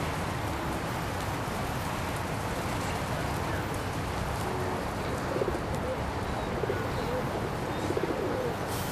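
Rock pigeons cooing, several short low coos in the second half, over a steady background hiss and rumble.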